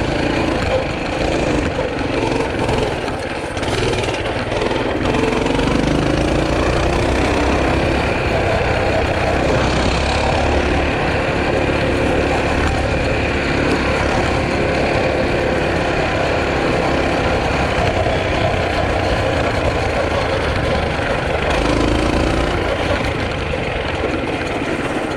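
Small engine of a Tote Gote trail bike running steadily, its pitch rising and falling a few times as it is throttled up and down.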